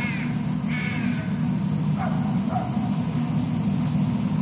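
Bird calls: two short, harsh, downward-bending calls about a second apart, then fainter, lower calls a second later, over a steady low rumble.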